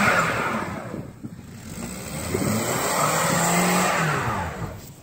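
Car engine revving as its front tire spins in deep snow without grip, the car stuck. The revs ease off about a second in, then rise and fall again before dropping away near the end.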